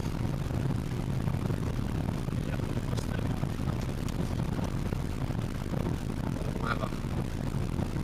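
Steady low rumble of a car's engine and tyres on the road, heard from inside the cabin while driving.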